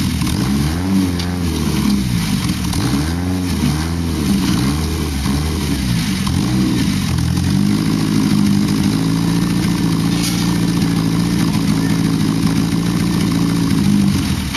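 Lifted Isuzu Trooper's engine under load as it climbs onto a junked car, revving up and down several times, then holding a steady, higher-pitched run from about halfway through.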